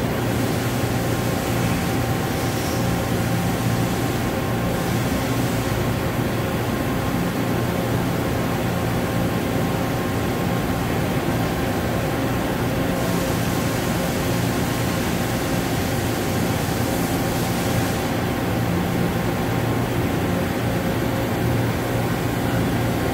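Five-axis CNC machining centre running steadily, a constant hum with a few faint steady whining tones over a hiss. The high hiss grows louder for several seconds about midway.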